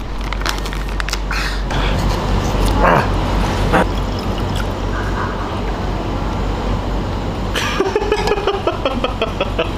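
A plastic snack pouch torn open and crinkled, then a drink poured from a carton into a glass with a steady splashing rush. Near the end a different pitched sound comes in with rapid ticks.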